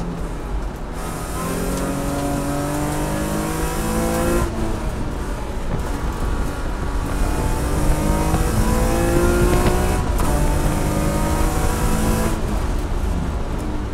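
Race car engine heard from inside the cockpit, pulling hard with its pitch climbing again and again under acceleration. It briefly breaks off where the driver lifts, and shifts up from third into fourth gear about ten seconds in. The engine lifts off and drops in pitch near the end.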